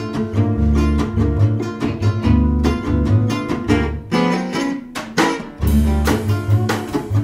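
Background music: plucked acoustic guitar over a steady low beat, which drops out for about a second and a half midway and then comes back.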